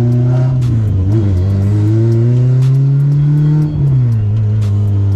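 A car engine under acceleration. Its pitch dips briefly about a second in, climbs steadily, then drops sharply with a short dip in loudness just past the middle, and holds steady after that.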